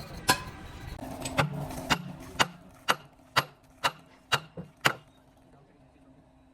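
A hammer striking metal about ten times, roughly two blows a second, stopping about five seconds in.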